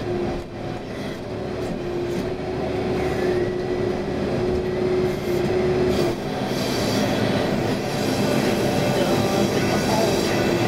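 Backhoe's diesel engine running under load, with a steady whine over it that stops about six seconds in, after which the engine noise grows fuller.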